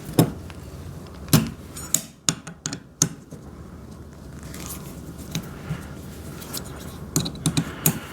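Metal stand parts clinking and knocking as they are handled and taken apart: a few sharp knocks in the first three seconds, then a quick run of light clinks about seven seconds in.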